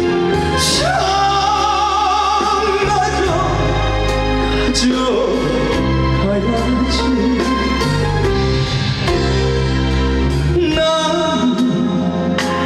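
Live trot song: a male singer over a band backing with a steady bass line and regular drum hits, with a long held note with vibrato about a second in.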